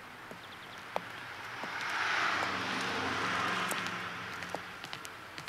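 A car driving past in street traffic, its engine and tyre noise swelling to a peak about two seconds in and then fading away.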